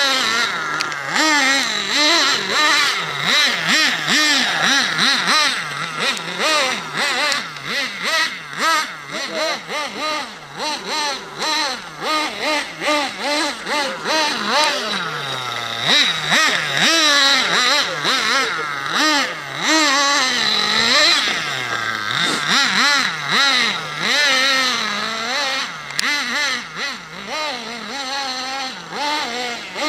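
Small nitro engine of an RC buggy, revved up and down constantly as it is driven, its pitch rising and falling every second or so without settling.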